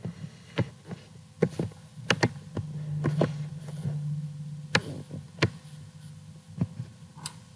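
Computer keyboard keys clicking at irregular intervals as a line of code is typed and edited. A low hum comes in for a couple of seconds in the middle.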